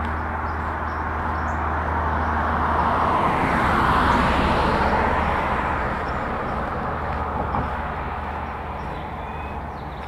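A vehicle passing by on the street, its tyre and engine noise swelling to loudest about four seconds in and then fading away. Walking footsteps on pavement tick faintly underneath.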